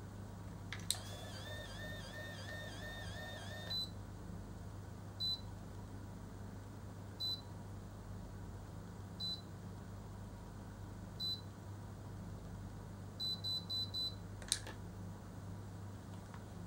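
Automatic rotating curling iron: its motor whirs for about three seconds as it draws a section of hair into the barrel. It then beeps once about every two seconds while the curl sets, gives four quick beeps to signal that the curl is done, and ends with a click as it lets go.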